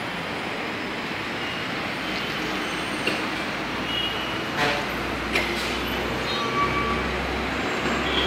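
Steady outdoor street traffic noise, with a few short high-pitched beeps and a couple of sharp clicks near the middle, and a low rumble swelling from about five seconds in.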